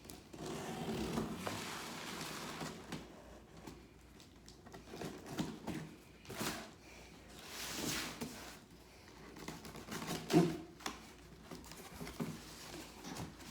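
Shoebox and its paper packaging being handled: a rustle of paper, then a series of short knocks and rustles, the sharpest about ten seconds in.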